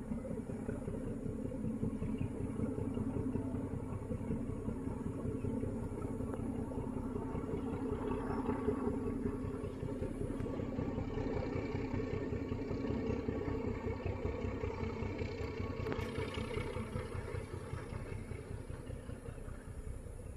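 Pair of diesel locomotives running uphill under load, a steady engine rumble that fades over the last few seconds.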